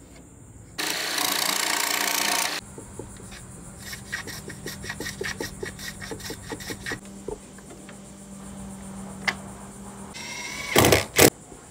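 Hand work on wood: a loud steady hiss lasting about two seconds, then a hand tool rubbed back and forth on a piece of wood in quick even strokes, about four a second. Near the end, two loud knocks as a wooden board is handled against the boat's transom.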